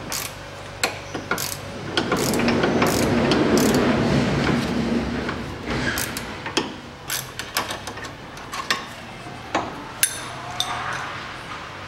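Hand ratchet working a 14 mm nut off a stabiliser link, clicking rapidly through the first half, then scattered clicks and clinks of steel tools on metal.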